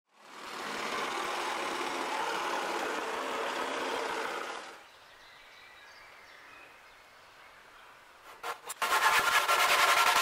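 A steady rushing noise for the first five seconds or so, then much quieter. From about eight seconds in, a handsaw rasps through a long square wooden mast timber in strokes with short breaks between them.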